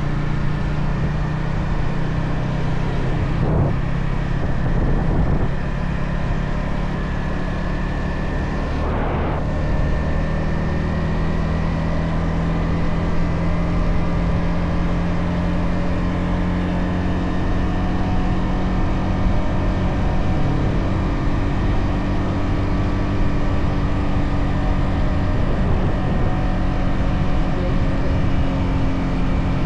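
Stock Yamaha XSR 155 single-cylinder engine running steadily while cruising, with its exhaust note holding an even pitch under road and wind noise.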